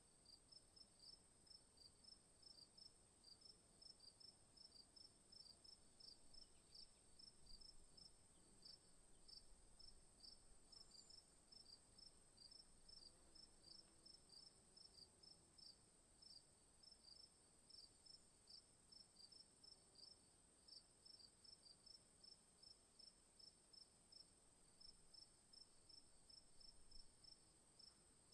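Crickets chirping faintly in a steady rhythm, about three chirps a second, over a continuous high-pitched insect trill.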